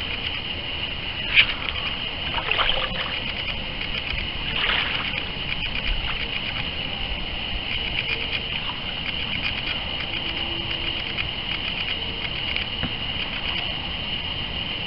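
Small waves lapping and splashing right at the microphone, a few sharper splashes in the first few seconds, over a steady high-pitched buzz.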